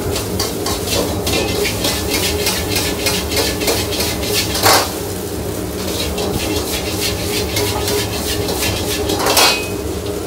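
Metal utensil clanking and scraping rapidly against a wok as fried rice with pork is stir-fried over high heat. Two louder noisy rushes come about halfway and near the end.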